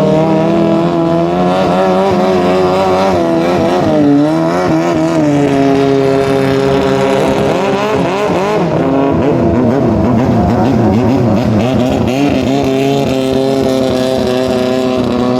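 Longtail racing boat engine running hard at high revs, its pitch wavering and sweeping up and down about four seconds in and again from about eight to eleven seconds in.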